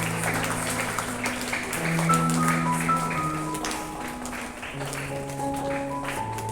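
Instrumental background music with slow held melody notes over a bass line, with scattered clapping from the audience.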